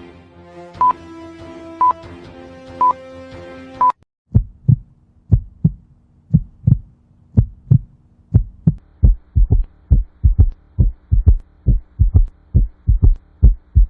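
Music with a short high beep about once a second, then heart sounds heard through a stethoscope from about four seconds in: paired lub-dub thumps about once a second that come faster toward the end.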